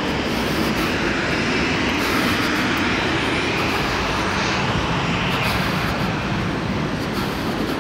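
Steady, loud engine noise from vehicles or aircraft, swelling slightly about two seconds in and easing a little near the end.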